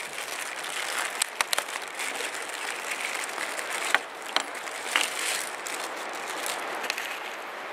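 Scattered clicks and light knocks from handling the parts of a Weber Smokey Joe grill's lid during assembly, over a steady background hiss.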